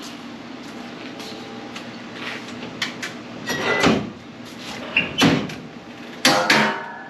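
A string of clunks and knocks from the car's body being handled, with two loud clunks about six seconds in and a short ring after each.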